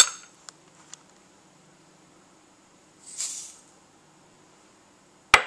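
Dry breadcrumbs poured from a cup onto ground beef and diced onion in a mixing bowl make a brief soft hiss about three seconds in. A few light ticks come in the first second, and a single sharp click comes near the end.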